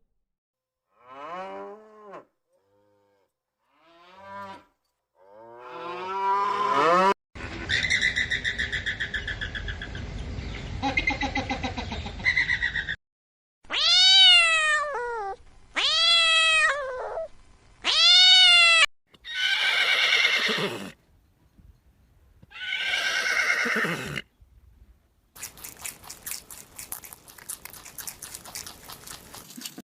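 A series of cats meowing: several short meows that rise and fall, three strong ones about two seconds apart in the middle, then rougher, noisier calls. A rapid train of clicks fills the last few seconds.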